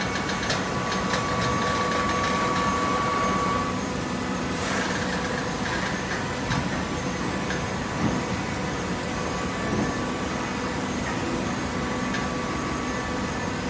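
Hydraulic vertical paper baler running, its motor and pump giving a steady mechanical hum with a higher whine that drops out about four seconds in; a few faint knocks.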